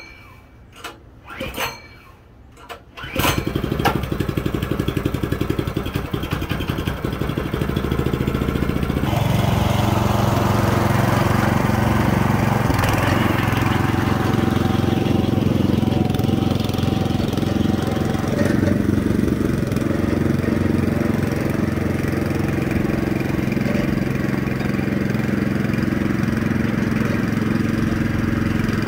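A small gasoline engine starts about three seconds in after a few short knocks, then runs steadily. It grows fuller and louder about nine seconds in.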